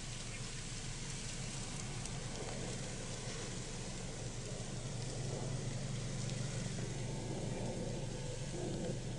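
Brush fire truck engine running with a steady low drone, under the even hiss and faint crackle of burning brush.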